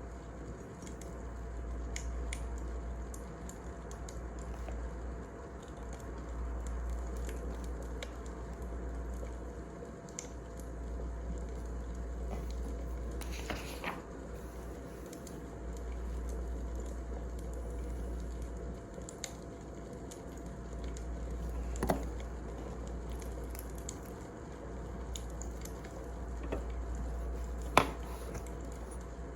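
Wood fire burning: a low, steady rumble that swells and fades, with scattered small crackles and a couple of sharper pops near the end.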